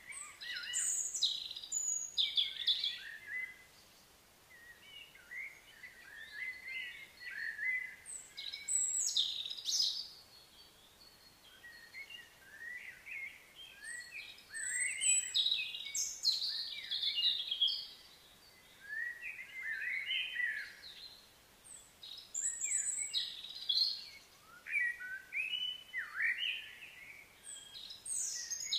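Songbirds singing and chirping in bursts of quick, varied notes, several calls overlapping, with short pauses between phrases over faint background hiss.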